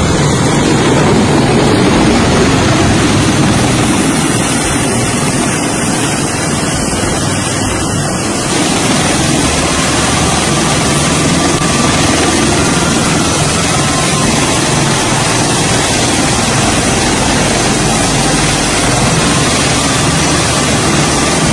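Bell Boeing V-22 Osprey tiltrotor running on deck in helicopter mode: its two turboshaft engines and proprotors make a loud, steady rotor and turbine noise.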